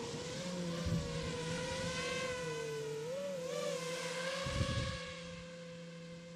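Motors of a 7-inch long-range FPV quadcopter (iFlight Chimera 7, 1300Kv) whining steadily as it climbs away after take-off. The pitch wavers briefly in the middle, and the sound drops in level after about five seconds. Wind buffets the microphone twice with low thumps.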